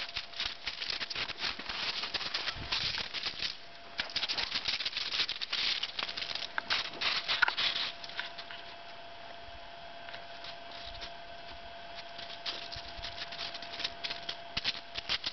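Rapid crunching steps on crusted snow and ice, a dense pattering of small crunches that stops for a few seconds in the middle and picks up again near the end, over a faint steady whine.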